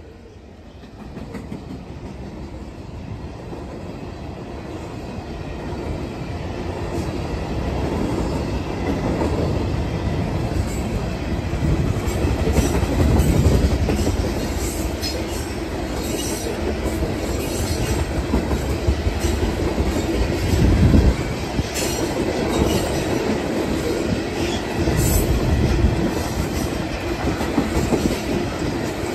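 Freight cars rolling past close by: a steady rumble with rapid, repeated wheel clacks over the rail joints, growing louder over the first several seconds. A steady wheel squeal joins in the later part.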